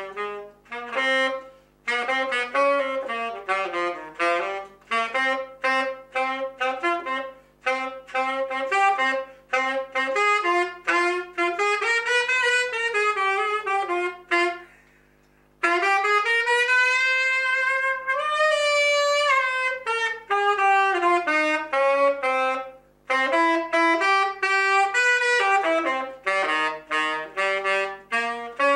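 A saxophone played solo in quick improvised runs of short notes, exploring scales. About halfway through, after a short pause, comes one long held note that bends up and back down before the fast runs resume.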